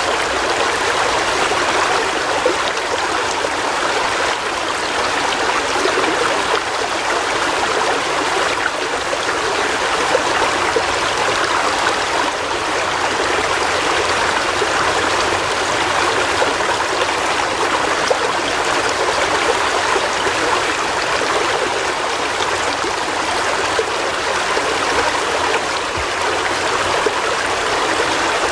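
River water flowing over rocks in a steady, unbroken rush with small splashes and trickles.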